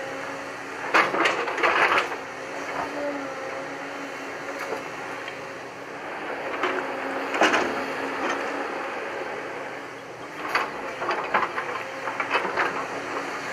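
JCB tracked excavator's diesel engine and hydraulics running with a steady hum, broken by bursts of rocks clattering and knocking: about a second in, about halfway, and several times near the end.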